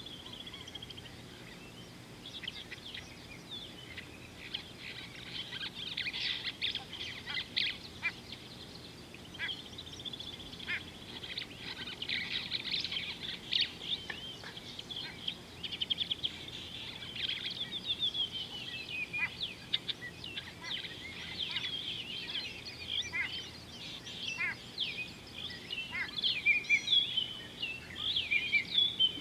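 Many small birds chirping, trilling and whistling at once, their calls overlapping without pause and growing busier and louder in the last few seconds.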